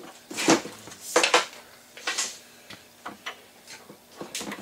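Steel shaft and bearing clinking and scraping against each other and the bench vise as the bearing is worked onto the shaft: a series of sharp metallic clatters, the loudest in the first two and a half seconds, then smaller clicks.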